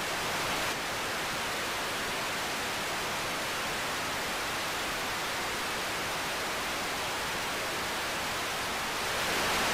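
Steady hiss of TV static (white noise) with no pitch or rhythm, growing a little louder near the end.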